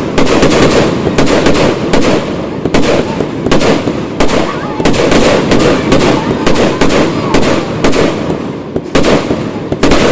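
Aerial fireworks bursting in rapid succession: many sharp bangs a few tenths of a second apart, over a continuous crackle.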